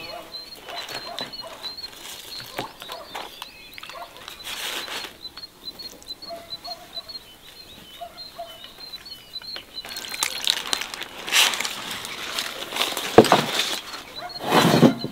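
Garden ambience with a small bird chirping over and over and a few brief lower bird calls around the middle. In the second half come several louder rushing and rustling noises, the loudest just before the end.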